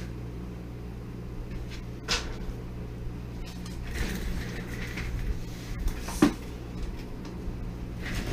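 A few knocks and scrapes of steel channel pieces being moved on a steel welding table, the sharpest one about six seconds in, over a steady low hum.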